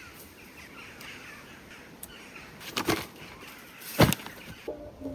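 Outdoor ambience with faint bird calls, broken by two sharp thumps about three and four seconds in, the second the louder. Near the end a few steady tones of background music begin.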